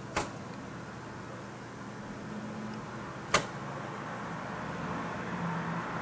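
Steady background hum of distant road traffic, swelling slightly near the end, with two sharp clicks about three seconds apart.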